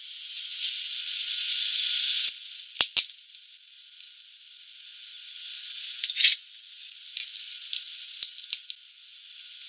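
Spicy crayfish tails peeled by hand: sharp cracks and small crackles of the shell breaking and being pulled off the meat, twice about three seconds in, again a little after six seconds, then a run of small crackles, over a steady hiss.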